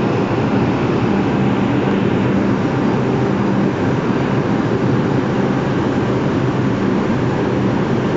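New York City subway train (R142 car) standing at the platform with a steady, loud hum from its onboard equipment, a few low tones coming and going over a constant noise.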